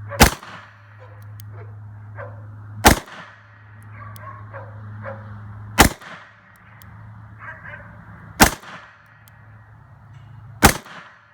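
Smith & Wesson 929 PC 9mm revolver firing 147-grain rounds: five single shots in slow, aimed fire, about two and a half to three seconds apart, each with a short ringing echo. A steady low hum runs underneath.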